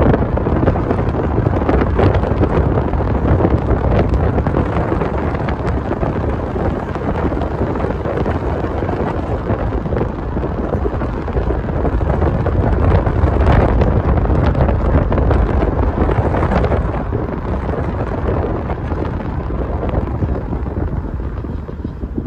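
Wind buffeting a phone microphone held outside the window of a moving car, mixed with the car's road rumble: a loud, steady rushing noise.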